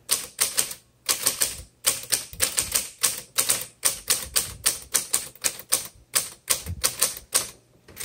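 Manual typewriter typing a line of text: a fast, even run of sharp key strikes as the typebars hit the platen, about three to four a second.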